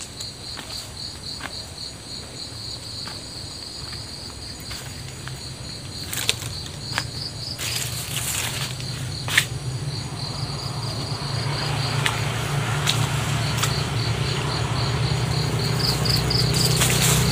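Insects chirping steadily in a rapid, pulsing trill, with scattered crunches of footsteps on dry coconut fronds. A low steady hum grows louder from about halfway through.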